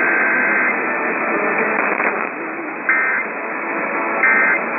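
Emergency Alert System digital data tones received over a hissy, narrow-band radio signal: a long burst of warbling two-tone data ends about a second in, then two short bursts follow about a second and a half apart, like the short bursts that close an alert as its end-of-message code.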